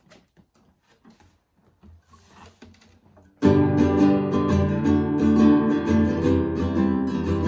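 For the first three seconds or so there are only faint clicks. Then, about three and a half seconds in, an acoustic guitar comes in suddenly, strumming steady, repeated chords as the introduction to a song.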